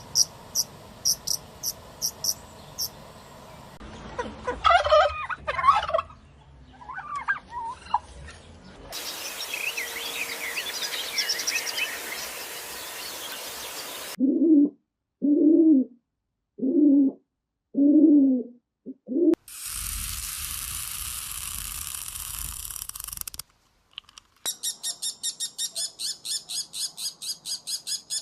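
Farm animal and bird calls in short clips cut one after another: rapid high chirping, a stretch of chirps over background noise, five low calls in a row, then fast repeated chirping about four a second.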